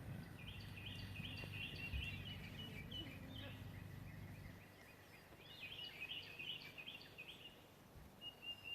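A small bird singing outdoors: two bouts of quick, repeated high chirps, over a faint low hum that fades out about halfway through.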